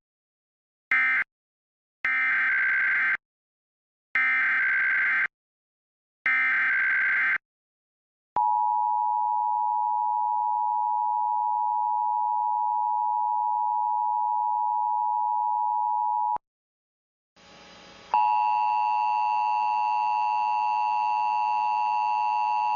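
Emergency Alert System tones: a short data burst about a second in, then three SAME data bursts of about a second each, then a steady single tone for about eight seconds. After a short gap, a harsh two-tone attention signal starts about 18 seconds in.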